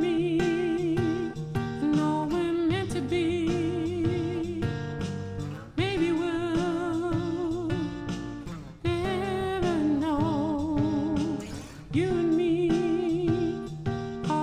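Male voice singing long, held notes with a wide vibrato over a strummed acoustic guitar, in a stripped-down acoustic rock performance. A new sung phrase begins about every three seconds.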